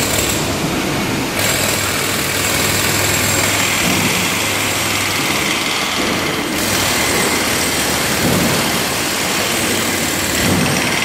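Steady, loud engine-like machinery running, with a low hum underneath and a hiss on top; its tone shifts slightly a couple of times.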